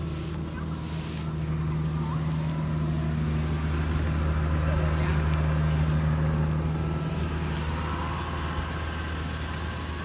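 Rice combine harvester's engine running steadily, a little louder in the middle, with rice stalks rustling as they are trampled.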